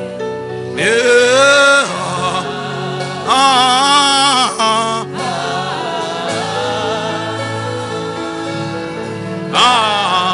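Gospel music: sustained chords with sung phrases coming in three times, about a second in, around three to four seconds in, and near the end.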